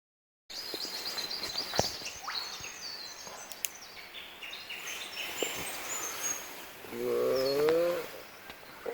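Bush birds chirping and twittering in quick high notes, busiest in the first few seconds. About seven seconds in comes a louder drawn-out wailing call, about a second long, with a wavering pitch.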